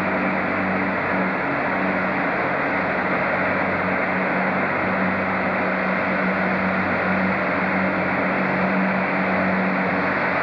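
Steady diesel engine hum of a Class 165 Network Turbo diesel multiple unit drawing slowly into the platform, with an even rushing noise under the trainshed and no change in loudness.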